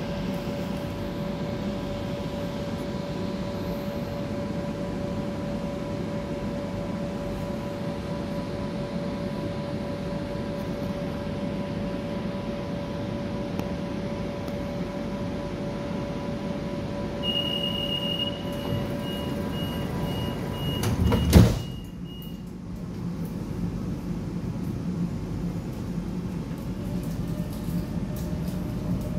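Metro train standing at the platform with a steady electrical hum. About 17 seconds in a high warning beep starts and turns into short repeated beeps, and a few seconds later the sliding doors shut with one loud thud.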